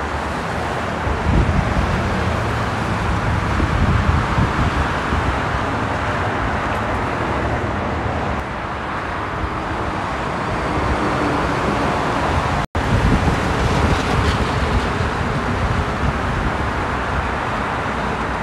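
Steady freeway traffic: a continuous wash of tyre and engine noise from passing cars and trucks, with some wind on the microphone. The sound cuts out for an instant about two-thirds of the way through.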